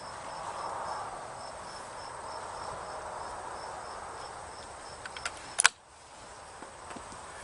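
Crickets chirping steadily, about two chirps a second. About five and a half seconds in, one sharp crack of a .22 rifle shot, the loudest sound, just after a couple of small clicks.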